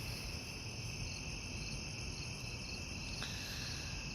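Crickets chirping in a steady, unbroken chorus of high trills.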